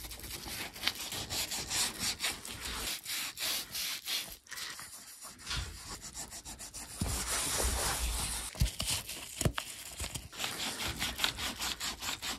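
Damp, soapy terry washcloth scrubbing a leather saddle in quick back-and-forth strokes, a wet rubbing of cloth on lathered leather to work out caked sweat and dirt.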